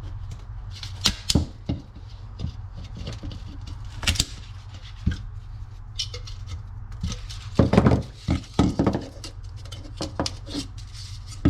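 Hard plastic clicking and cracking as leftover pieces of a factory speaker mount are broken off and trimmed by hand, in irregular sharp knocks with a louder cluster about eight seconds in.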